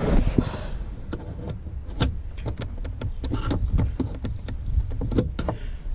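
Scattered small clicks, taps and scrapes of hard plastic being worked at by hand, as an old 12-volt wall socket's plastic housing is prised and wiggled loose.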